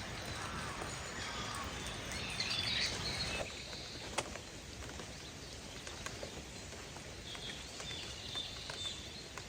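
Steady rain patter with a small bird chirping twice, about two seconds in and again near the end, and a single sharp click about four seconds in.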